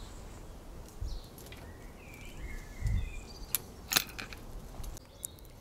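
Light knocks and two sharp clicks as the fuel filler cap assembly is lifted out of a BMW K1100LT motorcycle's fuel tank.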